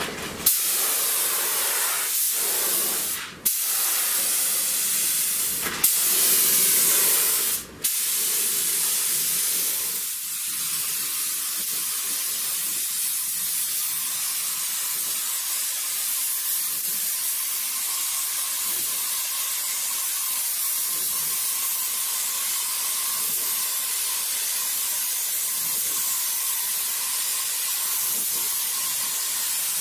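Gravity-feed paint spray gun hissing with compressed air as it lays on a coat of acrylic primer filler. The trigger is let off briefly twice in the first eight seconds, then held in one steady hiss.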